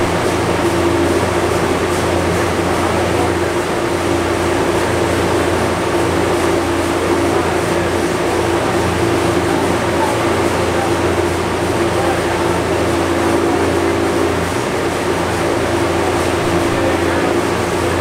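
Steady drone from a chassis-dyno cell between pulls: the B58-powered car held at a constant engine speed with the cell's cooling fans blowing, a steady hum with no revving.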